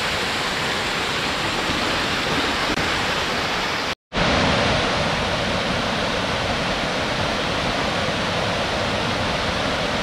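Rain-swollen mountain stream rushing and cascading over boulders, a steady, loud rush of white water. About four seconds in, the sound cuts out for an instant and then the rush resumes.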